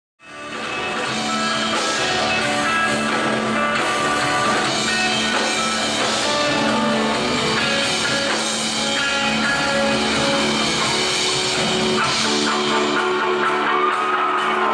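Rock band playing an instrumental intro with electric guitar and drum kit, fading in quickly out of silence at the start and then holding a steady, full sound.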